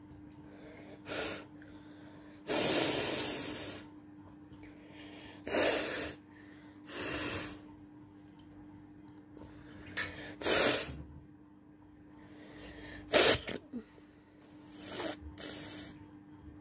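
A person sneezing and blowing their nose over and over, in about eight separate noisy bursts of varying length. The longest lasts over a second, and the sharpest, loudest one comes about thirteen seconds in.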